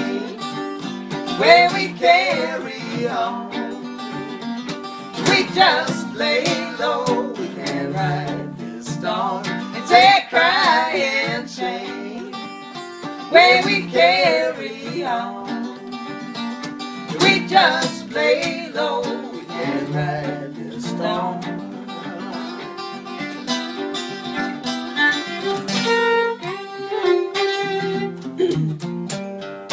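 Fiddle and archtop guitar playing a folk song together, with a woman and a man singing together over them.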